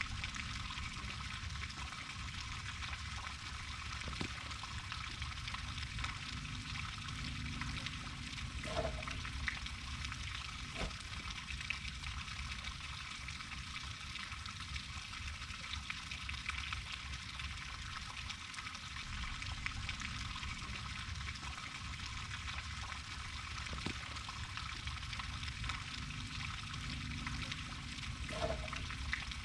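Steady hissing background noise with a few faint clicks and no speech.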